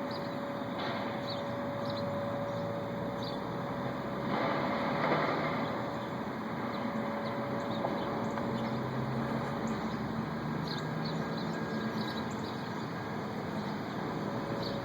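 A distant, steady droning hum of unknown origin: a single held mid-pitched tone over several lower hums. About four seconds in, a rushing swell rises and fades.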